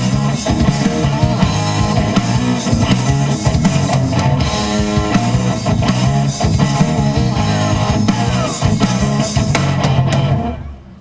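Live rock band playing loud electric guitars, bass and drum kit in the closing bars of a song, cutting off together about ten and a half seconds in.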